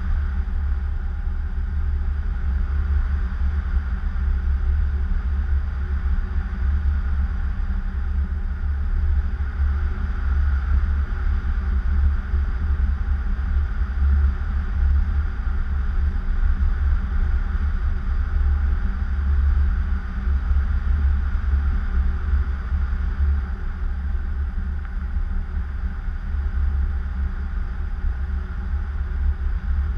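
Airflow rushing over the camera microphone in paraglider flight: a steady low rumble of wind buffeting with a fainter hiss above it.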